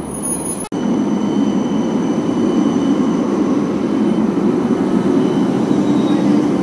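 Transtech Artic low-floor tram passing close: a steady rumble of wheels on the rails with a faint, steady high-pitched tone over it. The sound breaks off for an instant less than a second in, then comes back louder.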